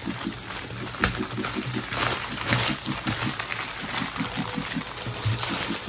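Plastic courier mailer being torn open by hand, crinkling and ripping, with the loudest rips about a second in and around two and a half seconds in. A low pulsing of about six or seven beats a second runs underneath.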